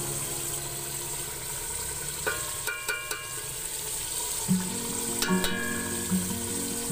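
Steel ladle tipping rice into a pot of hot gravy, which hisses steadily. The ladle clinks and rings against the steel pot in a few quick strikes about two seconds in, and again around five seconds.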